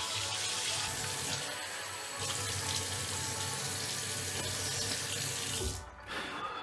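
Water running steadily from a bathroom mixer tap into a ceramic basin, stopping abruptly near the end.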